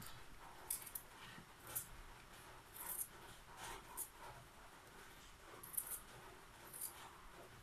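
Small knife paring the skin off a potato: faint, irregular scraping strokes, roughly one a second.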